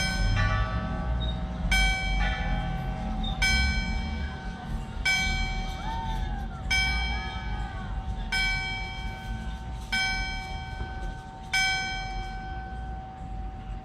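A church bell tolling at a slow, even pace: eight strikes about a second and a half apart, each ringing on into the next and fading after the last one.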